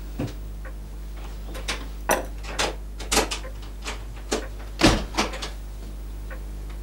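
Small objects being handled and set down on a wooden table: about seven or eight irregular sharp clicks and knocks, the loudest about five seconds in, over a steady low hum.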